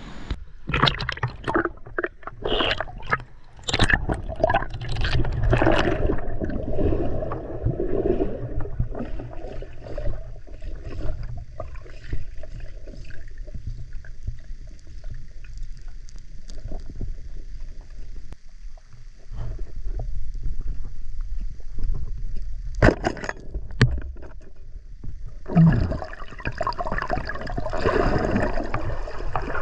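River water gurgling and sloshing, with irregular knocks and scrapes; busier near the start and again near the end.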